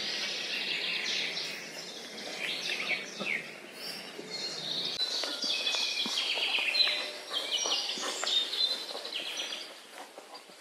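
Woodland songbirds singing together, a dense overlapping chorus of quick high chirps, trills and short whistled notes.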